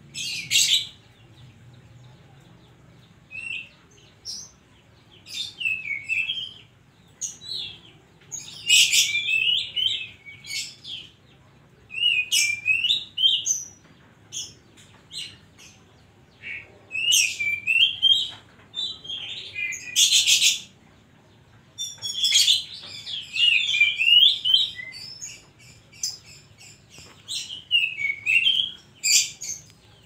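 Oriental magpie-robin (kacer) singing a varied song of short whistled phrases mixed with harsh, scratchy notes, in bursts every couple of seconds with brief pauses between.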